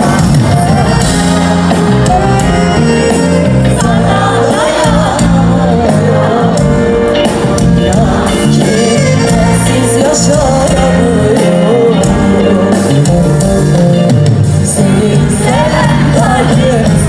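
Live Turkish pop music: a band with keyboards, bass guitar and drums playing while a woman sings into a microphone.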